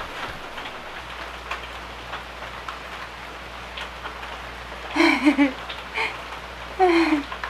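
Heavy rain falling steadily. Two short vocal sounds, wavering in pitch, rise above it about five and seven seconds in.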